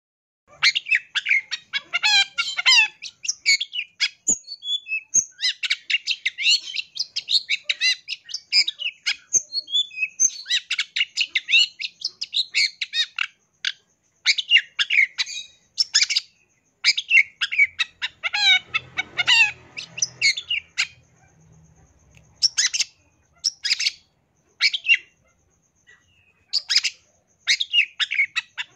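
Long-tailed shrike (cendet) singing a fast, chattering song of rapid sharp notes, delivered in bursts with short pauses between phrases.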